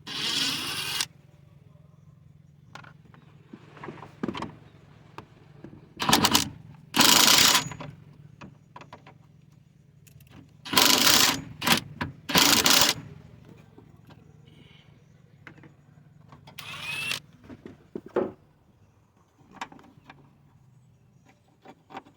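A 10mm socket ratchet clicking in short bursts as bolts holding an airbox and its bracket are loosened, with handling clatter from the parts. There are about eight separate bursts over a faint low hum.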